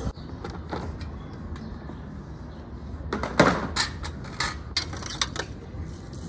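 Portable butane camp stove being handled on a metal mesh table, its fuel canister compartment opened: a run of sharp metal clicks and clacks starting about three seconds in, after a quiet stretch.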